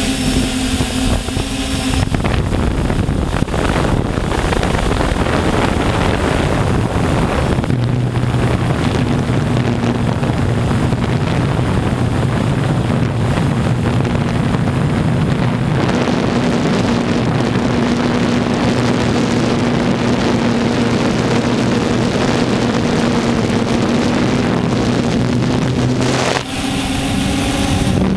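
Multirotor drone's electric motors and propellers humming in flight, heard close on the onboard camera with heavy wind and propeller-wash noise over the microphone. The hum shifts in pitch a few times as the throttle changes.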